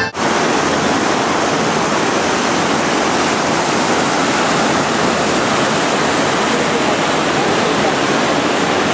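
Shallow water rushing steadily over sloping stone paving in a plaza water feature.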